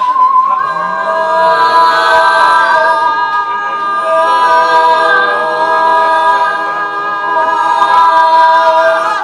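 Mixed-voice improvising choir singing unaccompanied: one voice holds a wavering note, then about half a second in the rest join with long held notes that stack into a dense, sustained chord. The chord swells and eases in loudness a few times.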